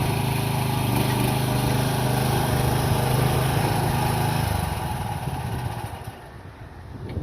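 A mini excavator's small engine runs steadily, then is switched off about four and a half seconds in and runs down to a stop.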